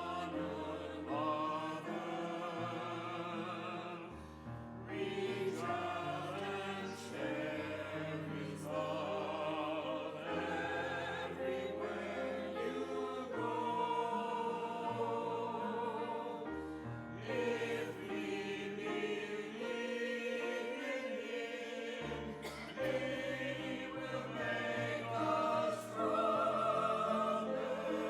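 Music: a choir singing sustained notes with vibrato over held low accompaniment notes.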